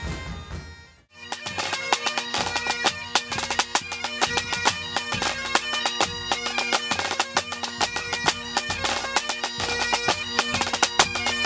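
Bagpipe music with drums: a steady drone under the melody and a run of drum strikes. It cuts in after a brief drop to silence about a second in.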